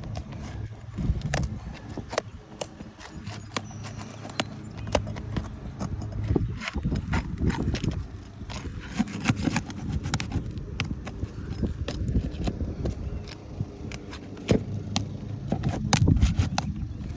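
Roof snake shingle-removal bar being worked under asphalt shingles to break their seal strips: irregular scraping with many sharp clicks and knocks.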